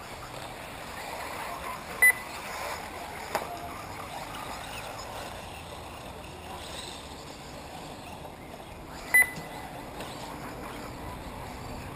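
Two short, loud electronic beeps about seven seconds apart, from the race timing system at an RC buggy race, over steady outdoor background noise.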